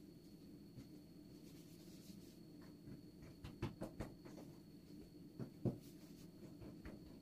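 Hands pressing and rolling pieces of dough on a floured wooden tabletop: faint rubbing with a few soft taps around the middle and about three-quarters through, over a low steady hum.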